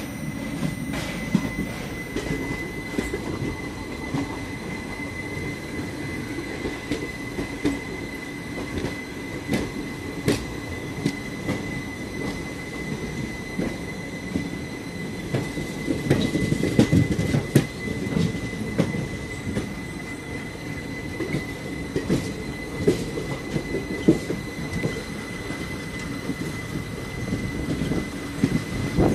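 Passenger train running, heard from an open coach doorway: a continuous rumble of wheels on the track with irregular clicks and knocks, busiest about halfway through, under a steady thin high-pitched squeal.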